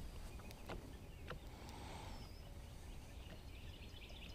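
Quiet outdoor ambience on open water: a low steady rumble of wind on the microphone, a few faint clicks from handling the fishing rod and reel, and faint bird chirps near the end.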